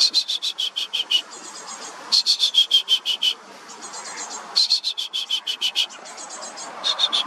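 A songbird singing short, loud phrases of quick repeated notes that fall slightly in pitch, one phrase every couple of seconds. A fainter, higher-pitched song answers in the gaps.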